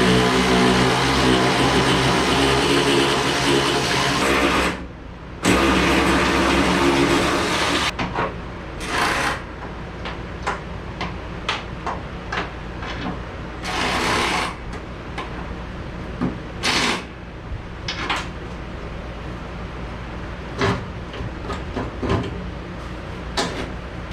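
A small motor runs steadily, cuts out briefly about five seconds in, runs again and stops about eight seconds in. After that come scattered knocks and clunks of hand work.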